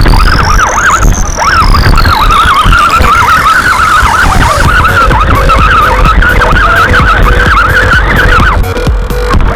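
Electronic dance music: a synth sweep rises over the first second and then falls away, over a warbling lead line and heavy bass.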